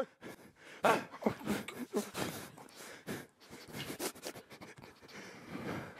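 People breathing hard and gasping in short, uneven puffs, mixed with scattered brief scuffs and knocks.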